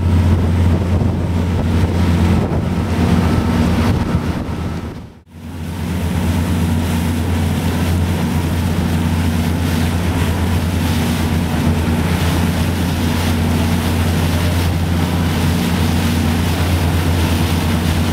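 A boat's engine droning steadily, with wind rushing over the microphone. The sound dips out briefly about five seconds in, then carries on unchanged.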